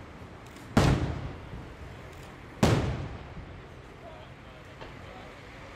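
Aerial firework shells from the 12th May Fireworks Factory bursting overhead: two loud bangs about two seconds apart, each followed by a fading, echoing rumble.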